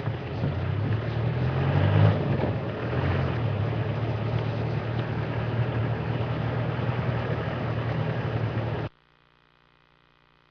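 Game-drive vehicle's engine running as it drives along a dirt track, its pitch rising and falling with the throttle over road and wind noise. The sound cuts off abruptly near the end, leaving only a faint hum.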